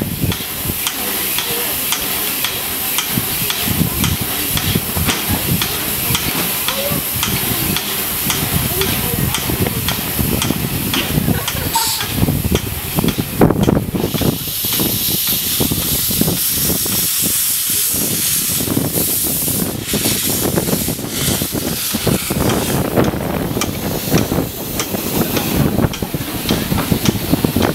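Narrow-gauge steam locomotive hissing steam, steadily, growing louder for a few seconds around the middle, with scattered knocks and background voices.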